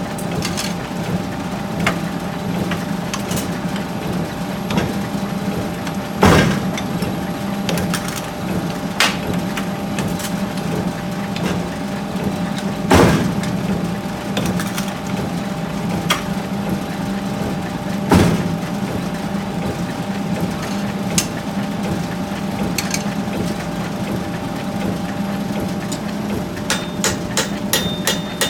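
Forge workshop machinery humming steadily. Over it come sharp metal knocks: three loud blows several seconds apart, fainter knocks in between, and a quick run of light taps near the end.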